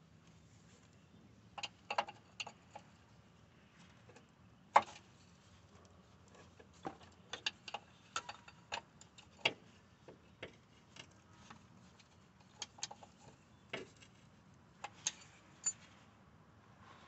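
Irregular light metallic clicks, taps and clinks of tools and parts being handled, with one sharper knock about five seconds in.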